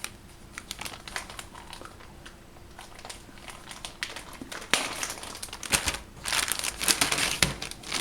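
Plastic packaging crinkling and rustling as products are handled and unwrapped: faint scattered crackles at first, then louder, sharper crinkling from about five seconds in.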